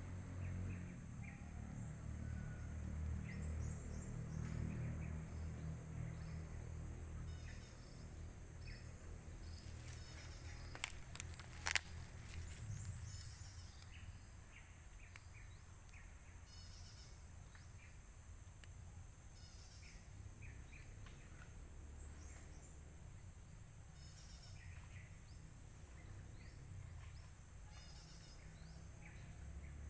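Forest ambience: short bird chirps every few seconds over a steady high insect drone, with a low rumble that fades after the first several seconds. A few sharp clicks come a little over a third of the way in.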